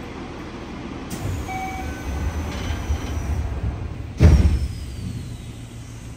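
Yokohama Blue Line 3000R subway train running between stations, heard inside the car: a steady low running rumble that grows louder about a second in, with faint high whining tones above it. About four seconds in comes a heavy thump with a deep boom, then a thin high whine falling slowly.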